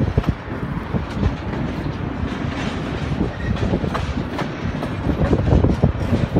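Double-stack container train rolling past, the wheels of its well cars clicking and clacking over the rail joints over a steady low rumble.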